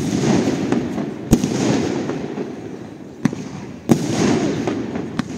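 Fireworks display: aerial shells bursting in a series of about five sharp bangs one to two seconds apart, each trailing off in a lingering rumble.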